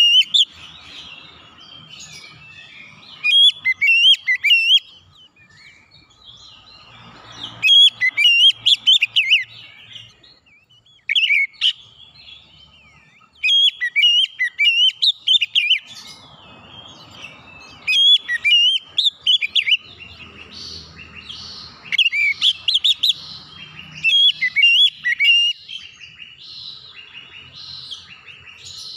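Oriental magpie-robin singing: loud bursts of quick, varied whistles and chirps, each phrase about one to three seconds long with short pauses between, repeating throughout.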